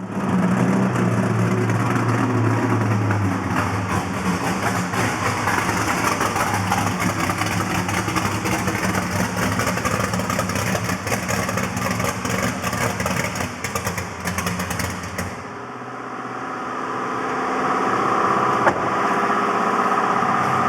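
Car engine running, with a dense sound for about fifteen seconds that then dips and changes, and a steadier tone rising near the end.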